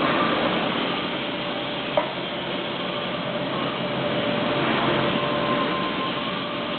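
CO2 (MIG) welding arc of an automatic rotary-torch welder crackling steadily as it lays a seam on thin 0.8 mm sheet, with a faint steady whine beneath and a single sharp click about two seconds in.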